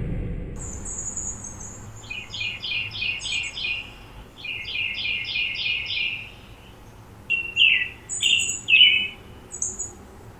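Birdsong: a high trill, then two runs of quick repeated chirps, then several separate short calls.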